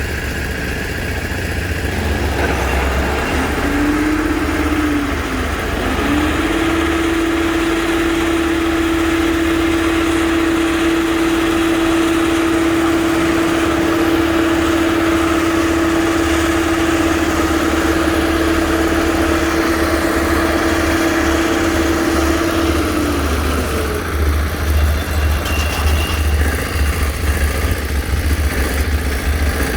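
Heavy construction machine's engine running steadily with a deep rumble. A steady mid-pitched whine comes in a few seconds in, breaks briefly and then holds until a little past the middle before stopping. Near the end the engine note turns uneven and pulsing.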